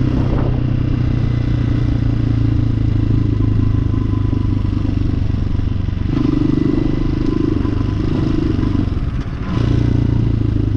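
Hawk 250cc motorcycle's single-cylinder engine, running on its newly fitted carburetor, pulling steadily as the bike is ridden. The note shifts about six seconds in and dips briefly about nine seconds in before picking up again.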